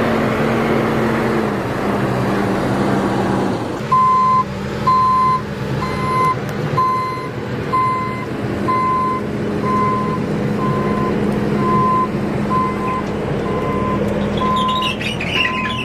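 JCB telehandler's engine running steadily. From about four seconds in, its reversing alarm beeps at an even pace, a little more than once a second.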